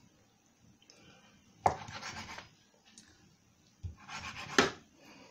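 Chef's knife cutting partly frozen chicken breast on a wooden chopping board: two cuts, each a short scraping stroke with a sharp knock of the blade on the wood.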